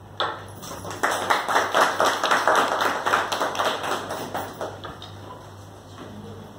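A small group of people applauding. It starts about a quarter-second in, is fullest for a few seconds, and dies away about five seconds in.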